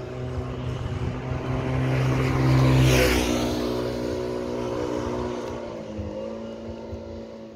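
A small motorbike passing close by, its engine growing louder to a peak about three seconds in, then fading as it rides off ahead.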